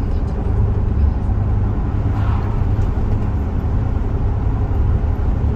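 Steady low rumble of a moving vehicle.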